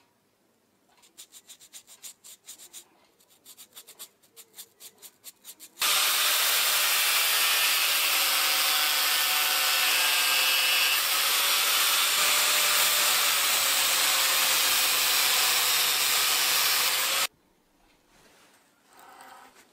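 A run of quick rasping strokes, then a grinding wheel grinding down a threaded metal fitting and throwing sparks. The grinding is loud and steady with a slowly wavering tone, cuts in about six seconds in, and stops abruptly about eleven seconds later.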